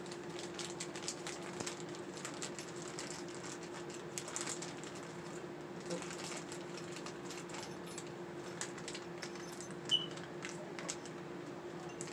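Rummaging: small objects clicking and rattling as things are moved about by hand, with one sharper click about ten seconds in, over a steady hum.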